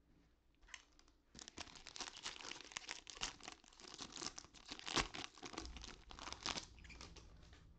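Foil wrapper of a baseball trading-card pack being torn open and crinkled, a dense crackling that starts about a second and a half in, with a sharp loudest rip about five seconds in.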